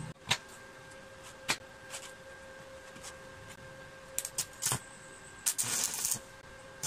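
Stick welder tack-welding a steel-tube gate frame: a couple of sharp knocks in the first two seconds, then short crackling bursts as the arc is struck about four seconds in, and a longer crackling sizzle a little before the end, over a faint steady hum.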